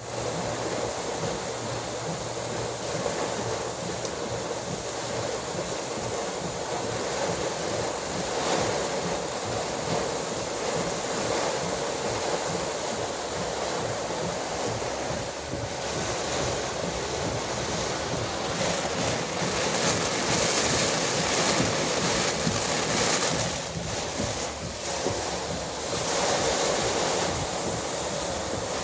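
Storm-front high wind blowing hard and rushing over the microphone, a continuous roar of noise that swells in gusts, loudest a little past the middle.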